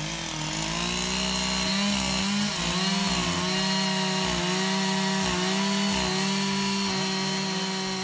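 Two-stroke chainsaw engine running at high revs, its pitch dipping briefly and recovering several times.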